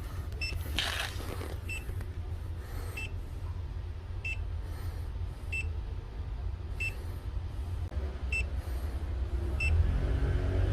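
Electronic refrigerant leak detector beeping: one short, high beep about every second and a quarter at a slow, even rate, not the rapid beeping it gives when it senses refrigerant. A steady low hum runs underneath and grows louder near the end.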